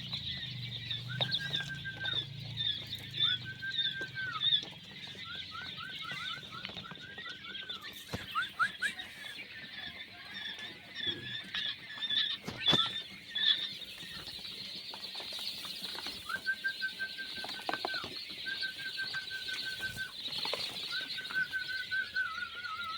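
A flock of quail calling all at once: a dense chorus of short, high-pitched peeps and chirps, with louder level whistled calls of about a second each now and then. A few sharp knocks stand out briefly.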